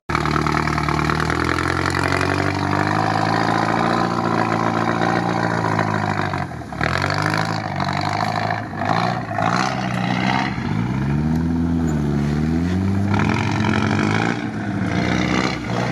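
GAZ-63 truck engine revving under load in deep mud, its pitch rising and falling again and again, with short breaks about six and fourteen seconds in.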